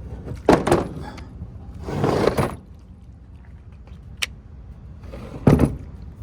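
Heavy truck batteries being handled: a sharp knock, a scraping slide about two seconds in, a faint click, and another loud knock near the end, over a low steady rumble.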